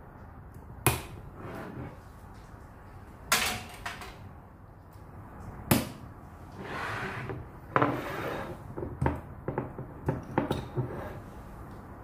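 Glass swing-top bottles being set down on a countertop and handled: a few separate sharp knocks, then a quick run of smaller clicks and clinks near the end.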